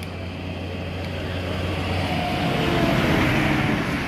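Large farm tractor's diesel engine running as it drives past, growing louder to a peak about three seconds in and then easing slightly.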